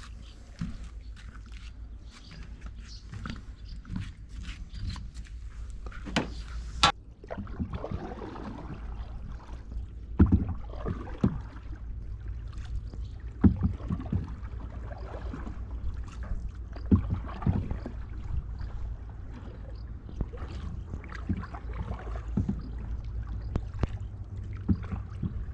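Canoe paddle strokes in river water, irregular splashes and gurgles every second or few, over a steady low rumble. Small clicks and knocks in the first several seconds, with one sharp knock about seven seconds in.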